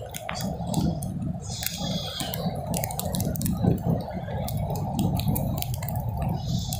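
Surf breaking on a beach, heard as a steady low rush, with many scattered light clicks and taps close to the microphone.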